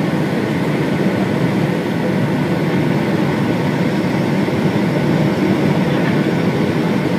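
Steady cabin noise inside a Boeing 757-200 on approach: the rumble of the engines and the airflow heard through the fuselage from a window seat beside the engine.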